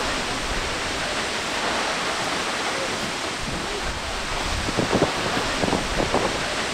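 Steady rushing roar of a big waterfall plunging close by. In the last couple of seconds wind buffets the microphone in uneven gusts.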